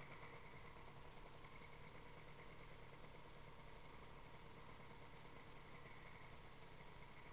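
Faint, steady, muffled running of a Piaggio NRG scooter's two-stroke engine under way, mixed with road and wind noise. The engine is on its first miles on a newly fitted piston ring.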